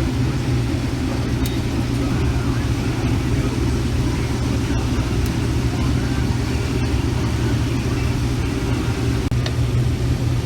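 A vehicle engine running steadily at an even speed, with a constant low hum.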